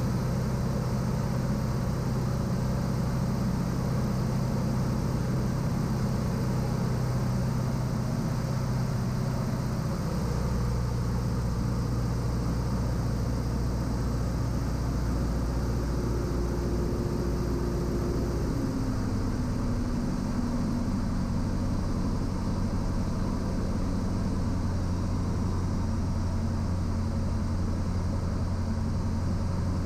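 Cessna 172's piston engine and propeller droning steadily in the cabin. The engine note drops in two steps, about ten seconds in and again near nineteen seconds, as power is eased back on the approach to land.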